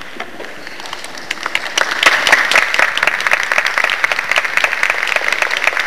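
Audience applauding: scattered clapping that swells to steady applause about two seconds in.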